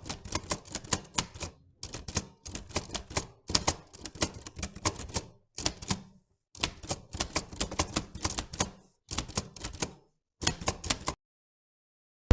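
Rapid clicking like typing keys, about five clicks a second, in runs of one to two seconds separated by short pauses, stopping shortly before the end.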